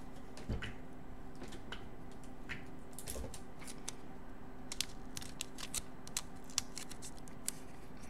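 Clear scotch tape being pulled off and pressed down over a wire, with scattered small sharp clicks and crinkles, most of them in the second half, over a faint steady hum.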